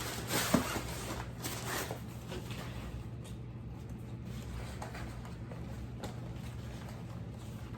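Packaging being handled while a box is opened: a few short rustling, scraping bursts in the first two seconds, then fainter occasional handling noises over a low steady hum.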